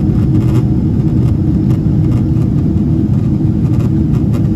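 Steady low roar inside the cabin of a Boeing 777-300ER in flight: its GE90 engines and the rush of air along the fuselage.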